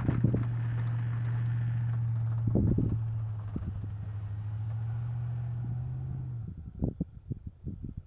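A vehicle engine running with a steady hum that cuts off abruptly about six and a half seconds in, followed by irregular low buffeting of wind on the microphone.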